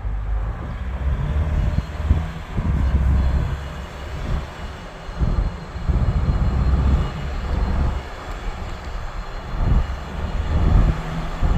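Ford Ranger Raptor making a low grinding rumble that swells and fades every second or two: the noise the owner is recording as a fault.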